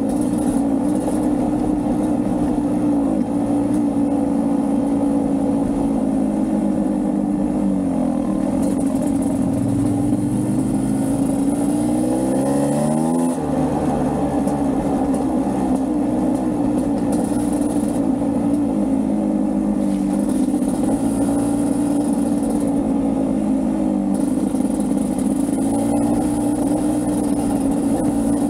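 Beta 250RR two-stroke enduro dirt bike engine running under varying throttle, revs rising and falling. Midway the revs climb for about two seconds, then drop abruptly.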